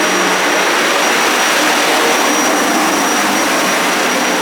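Loud, steady rushing machine noise with a thin, high-pitched whine running through it.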